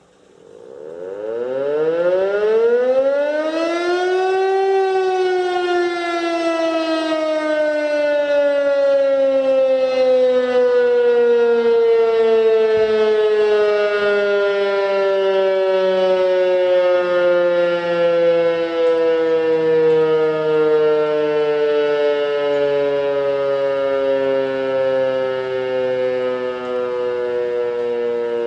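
DS977 motor siren sounding the civil-defence test signal. It winds up over about four seconds to its top pitch, then winds down slowly, the tone falling steadily.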